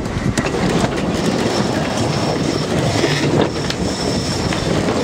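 Sailing yacht's sheet winches clicking rapidly as the crew grind and haul in the sheets during a tack, over steady wind and water rushing along the hull.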